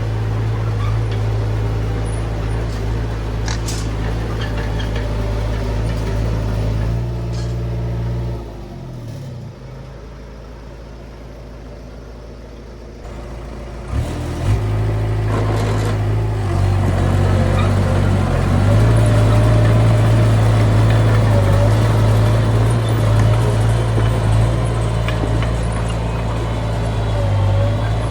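Komatsu D20 bulldozer's diesel engine running. About eight seconds in it drops in pitch and level toward idle; around fourteen seconds it throttles back up with a couple of sharp knocks and runs on steadily.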